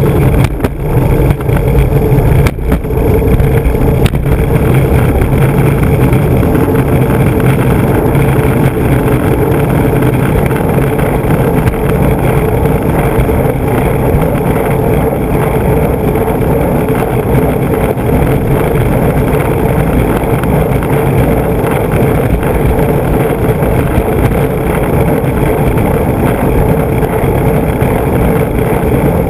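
Large urethane skateboard wheels rolling over rough pavement, a loud steady rumble picked up by a camera mounted on the board itself. A few sharp knocks come in the first three seconds.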